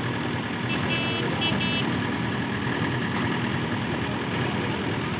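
Large diesel engine running steadily, with a few short high-pitched beeps about a second in.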